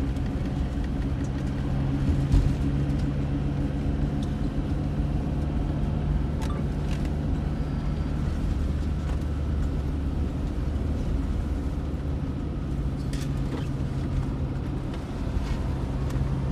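Moving vehicle heard from inside the cabin: steady engine hum and tyre rumble on a wet road, with a single thump about two seconds in.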